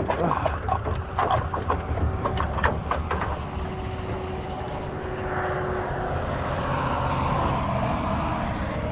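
Several seconds of clattering clicks and knocks, followed by a steady engine drone whose pitch slowly falls from about five seconds in.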